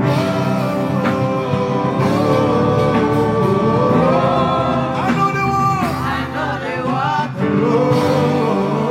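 Gospel worship music: a voice singing long, wavering held notes over a full band.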